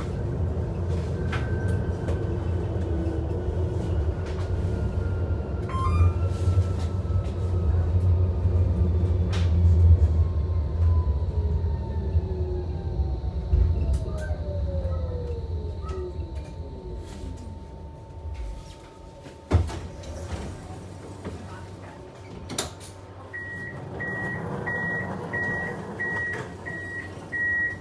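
Tram heard from inside while it slows to a stop: a running rumble with an electric whine that falls steadily in pitch until the tram halts. Near the end come the door warning beeps, a run of short high beeps about one and a half a second.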